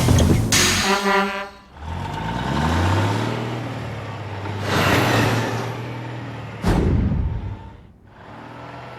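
Added slapstick sound effects: a splash, a short falling cartoon tone about a second in, then a low horn-like blare held for a few seconds, with another splash midway and a sharp hit and splash near the end.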